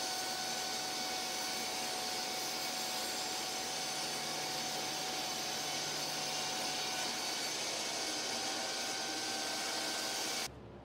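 Benchtop table saw running at speed with a steady whine, ripping a thin maple strip off a board. The sound cuts off suddenly near the end.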